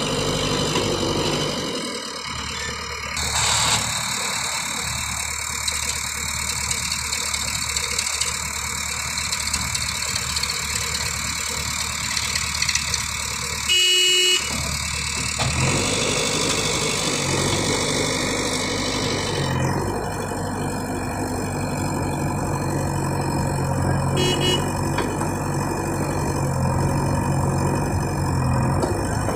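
JCB 3DX backhoe loader's diesel engine running steadily while the backhoe arm digs and swings soil, its note shifting sharply a few times. A short horn toot sounds about halfway through.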